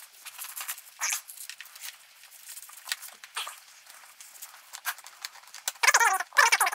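A dog whining in high, wavering cries near the end, over faint clicks and rustling.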